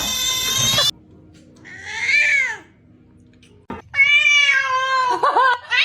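Domestic cat meowing three times: a long drawn-out meow that ends about a second in, a shorter meow that rises and falls around two seconds in, and another long meow from about four seconds in that dips in pitch at its end.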